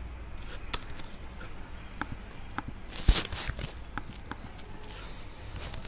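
Computer keyboard keys clicking at irregular intervals as a command is typed and backspaced, with one louder knock about three seconds in.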